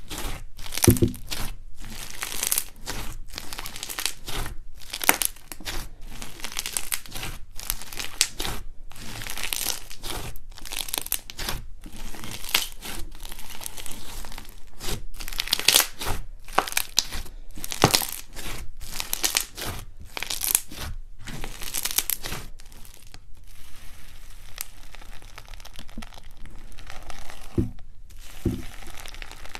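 Hands squeezing and stretching fluffy slime, giving a dense, fast crackling with tearing sounds. The crackling eases off about three-quarters through, then picks up again as foam-bead slime is pressed.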